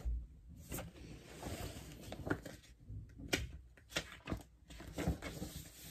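Quiet handling sounds of a paperback picture book: soft paper rustles and scattered small clicks and knocks as the pages are turned and the book is shifted.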